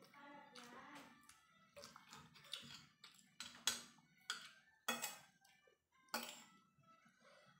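Metal fork and spoon scraping and clinking on a ceramic plate of fried rice, with about four louder, sharper scrapes in the second half.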